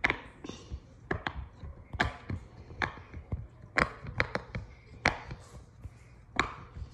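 Silicone pop-it fidget toy bubbles being pressed, making irregular soft pops about two a second.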